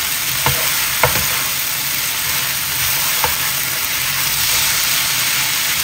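Lot noodles with beef and bean sprouts sizzling steadily in a hot nonstick frying pan as they are tossed with a spatula, with three light knocks of the spatula on the pan.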